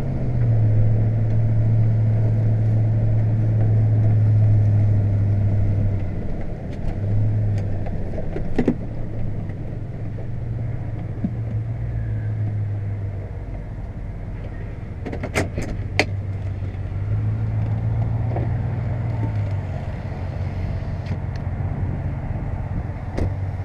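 Chevrolet Silverado pickup's engine running, heard from inside the cab as the truck drives over a muddy field: a low drone that is strongest for the first few seconds, then swells and eases. A few sharp clicks come about two-thirds of the way through.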